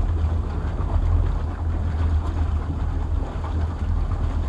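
Twin Volvo 5.7 OSI V8 engines of a 2005 Regal 3060 express cruiser idling at the dock with a steady low rumble.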